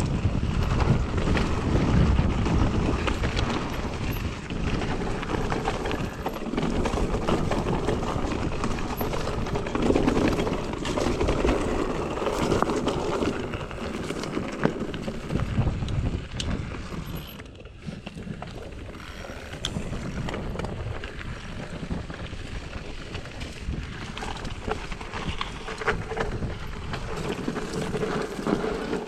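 Mountain bike riding over a rocky trail: tyres rolling over stones, with frequent short knocks and rattles, and wind buffeting the microphone. It quietens briefly a little past halfway.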